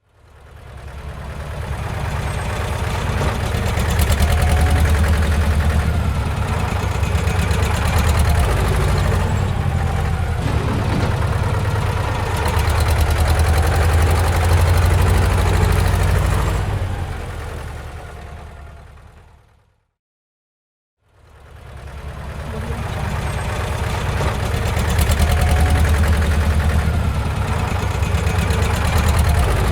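Bulldozer's diesel engine running steadily with a fast, even rattle. It fades out to about a second of silence a little past the middle, then fades back in and runs on.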